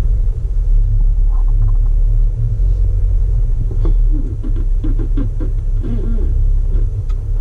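Jeep Wrangler JK running, a loud steady low rumble.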